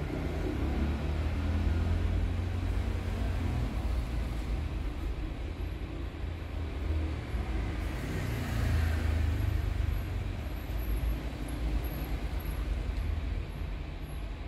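Steady blowing noise of a hot air rework station heating the solder under a phone's LCD connector until it melts, with a low rumble underneath.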